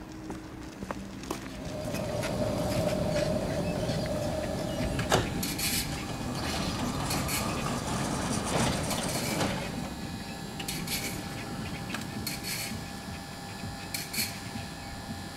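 Electric tram running on worn track: a steady whine for a few seconds, a sharp click, then a rumble with scattered clicks and knocks from the wheels on the rails.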